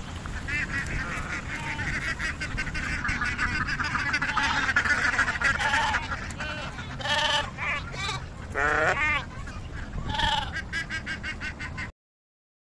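A flock of domestic ducks quacking noisily, many calls overlapping in quick succession. In the last few seconds several louder single calls stand out, and then the sound cuts off suddenly.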